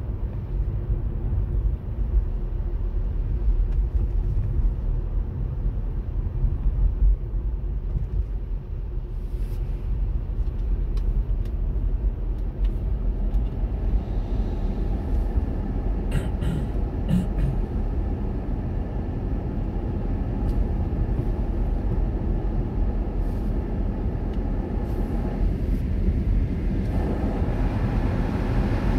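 Steady low rumble of city traffic and road noise, with a few faint clicks about halfway through.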